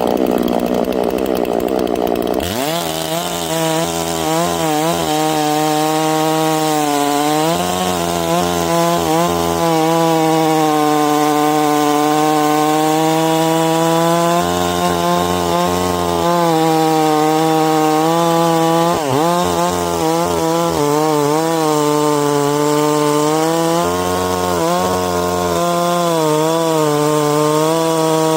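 Holzfforma G466 76.5cc two-stroke chainsaw revving up a couple of seconds in, then running at full throttle cutting into wood, its engine note sagging and recovering under load.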